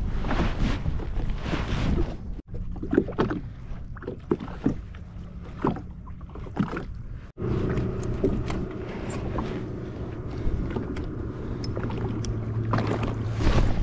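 Water lapping and splashing around a Sea-Doo Fish Pro jet ski, with scattered small clicks. About seven seconds in, a steady low hum of the jet ski's engine idling sets in and runs on.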